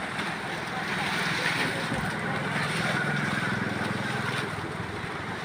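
A steady low engine-like hum under an even outdoor noise, holding level with no sharp knocks.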